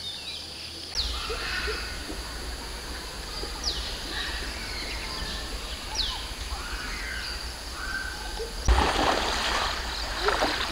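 Outdoor ambience: birds give a few short falling whistled calls over a steady background hiss. Near the end it changes abruptly to the louder rush and splash of flowing water.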